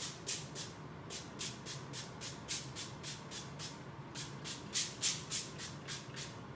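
Trigger-pump sprayer of I Can't Believe It's Not Butter spray spritzing onto cut spaghetti squash halves. It gives a rapid train of short hissy sprays, about three or four a second, with a few louder ones about five seconds in.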